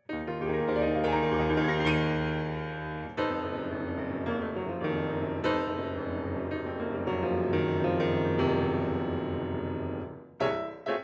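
Background piano music: held chords through most of the stretch, then a run of separately struck notes near the end.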